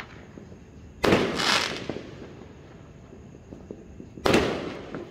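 Two aerial fireworks bursting in the sky, one about a second in and another about four seconds in, each a sudden bang that trails off over about half a second.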